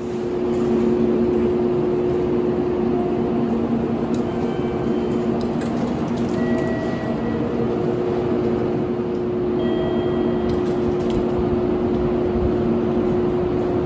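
A steady mechanical drone with two low humming tones over a noisy wash, starting abruptly. Faint short tones sound now and then.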